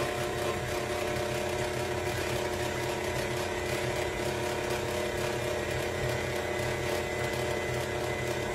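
Electric mixer motor running steadily, beating eggs into creamed butter and sugar.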